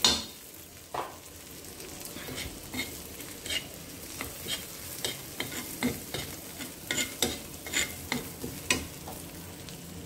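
Onion, garlic and coriander sizzling steadily in butter on a hot iron tawa, with a steel spatula scraping and tapping the pan in irregular short strokes as it stirs. The sizzle is briefly louder at the very start.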